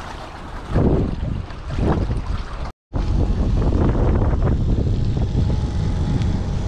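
Wind buffeting the microphone over choppy lake water lapping around an inflatable boat, with two loud gusts in the first couple of seconds. The sound cuts out for a moment, then comes back as a steady low wind rumble.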